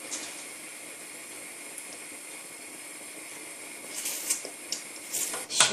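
Steady hiss with a faint low hum from a pot of milk heating on the stove, with a few short clicks and rustles about four and five seconds in.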